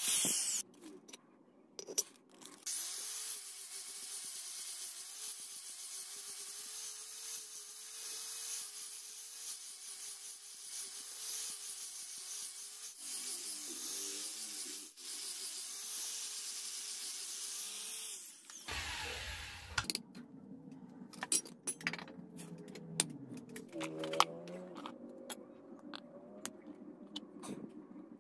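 Angle grinder with a sanding disc running steadily against the flat of a knife blade, sanding its surface. It stops about two-thirds of the way through, and scattered clicks and handling noise follow.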